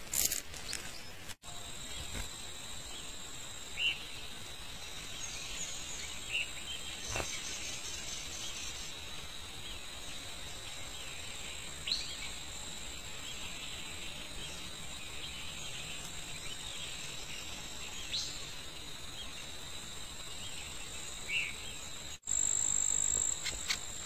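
Steady high-pitched insect trilling, with a few short bird chirps scattered through it. The sound cuts out briefly twice and comes back louder near the end.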